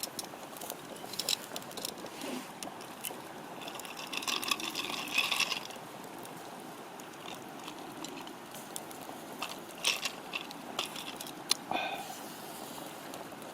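Campfire burning: a steady hiss with scattered sharp crackles and pops, thickening into a denser run of crackling about four to six seconds in.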